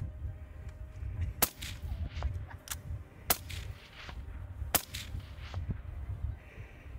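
Rifle shots fired at a coyote: three loud cracks about a second and a half apart, with fainter cracks between them, over a steady low rumble.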